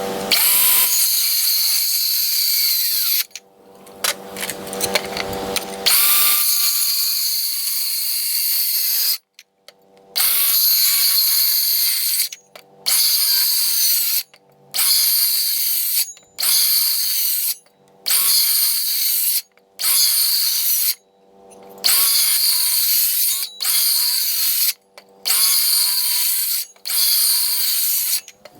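Power drill running in two longer runs and then a quick series of trigger pulls of a second or two each, with short pauses between; each pull begins with a brief rising whine as the motor spins up.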